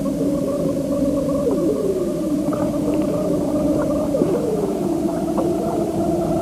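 Droning electronic soundtrack: several held synthesizer tones that slide slowly in pitch, with short swooping glides, over a rough low rumble.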